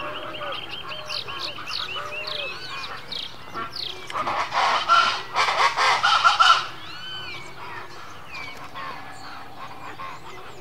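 Natural chorus of many wild birds calling over one another. From about four to six and a half seconds in, a loud stretch of rough, overlapping calls stands out.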